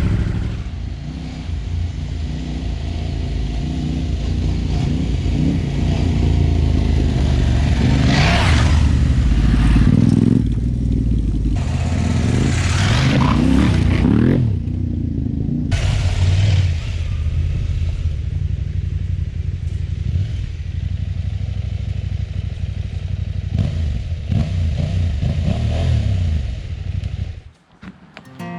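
Parallel-twin adventure motorcycle being ridden on the road, its engine running under load with its speed rising and falling, over wind rush. The sound cuts off suddenly near the end.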